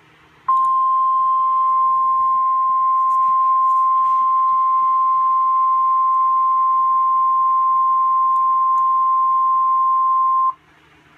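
NOAA Weather Radio 1050 Hz warning alarm tone: one loud, steady single-pitch tone held about ten seconds, starting about half a second in and cutting off suddenly near the end. It signals that a warning broadcast follows, here a severe thunderstorm warning.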